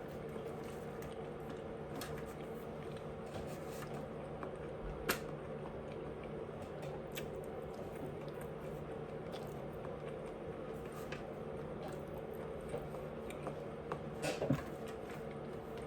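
A person chewing food with wet mouth sounds and scattered soft clicks, including a sharper click about five seconds in and a quick cluster of clicks near the end, over a steady low hum.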